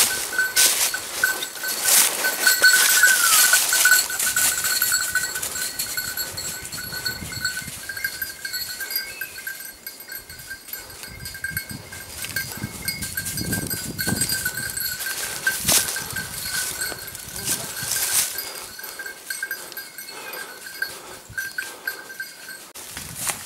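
A small bell on a hunting dog rings steadily as the dog runs through the undergrowth, then stops near the end. Footsteps crunch and rustle through dry leaf litter and twigs, loudest in the first few seconds.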